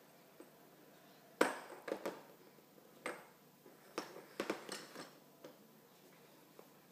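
Small plastic toys knocking and clacking against a plastic high-chair tray as a baby picks them up and sets them down: a string of sharp knocks, the loudest about a second and a half in and a cluster of quicker ones a little past the middle.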